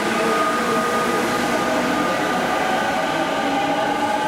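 E217 series electric multiple unit running past at close range: steady rumble of wheels on rail with a steady motor whine. A second whine rises slightly in pitch in the second half.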